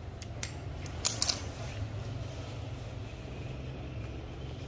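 A few light clicks and taps of metal being handled while a salvaged ball screw is measured, clustered about a second in, over a steady low hum.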